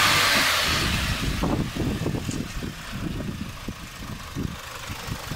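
Audi 2.0 ALT petrol four-cylinder engine running at idle under the open bonnet. A loud rushing sound in the first second fades into an uneven low rumble with irregular thumps, then settles to a steady hum near the end. The owner questions this running sound as a possible fault.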